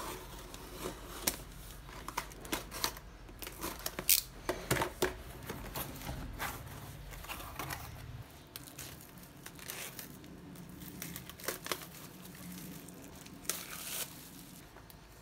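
A cardboard parcel being opened by hand: a small blade scraping along the packing tape, cardboard tearing and flaps being pulled open, then bubble wrap and a plastic bag crinkling as the contents are taken out. The sounds are irregular sharp rustles, scrapes and tears, busiest in the first half.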